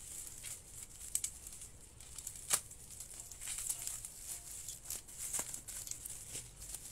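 Plastic bubble wrap rustling and crinkling as it is cut open with a box cutter and pulled apart, with scattered sharp clicks and snaps, the loudest about two and a half seconds in.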